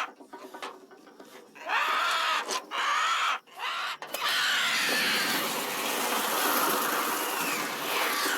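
A flock of crows that have been feeding on infected flesh, calling harshly: a few separate arching caws at first, then from about four seconds in a dense, continuous mass of overlapping cawing and screeching over a steady rushing noise.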